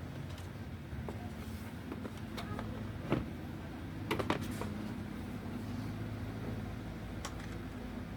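Light clicks and knocks of hard parts being handled, the loudest about three seconds in and a quick cluster about a second later, over a steady low hum.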